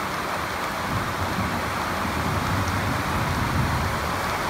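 Steady rain falling on a converted school bus's metal body, heard from inside as an even hiss, with a low rumble swelling through the middle.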